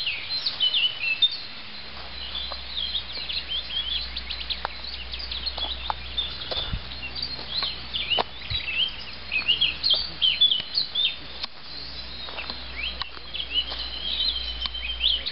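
Many small songbirds chirping and calling together in a dense chorus of short, quick, high chirps and twitters, over a faint low rumble.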